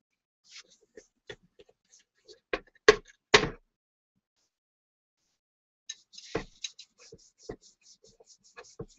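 Handling noise of a bowl being polished with a cotton pad: light rubbing ticks, three louder knocks about three seconds in, then a quick run of light ticks in the last three seconds.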